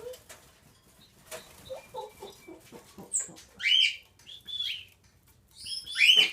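A small bird loose indoors, giving loud, sharp chirping calls: one about three seconds in, a few more through the middle, and a close cluster near the end. Before the calls there are light scattered clicks and rustles.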